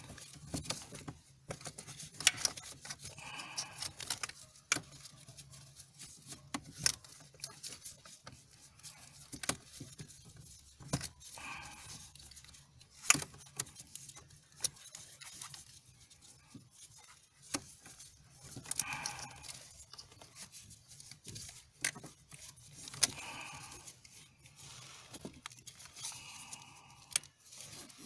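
A new brake light switch being turned by a gloved hand into its threaded bracket at the brake pedal: scattered small clicks and ticks with brief rubbing sounds, fairly quiet.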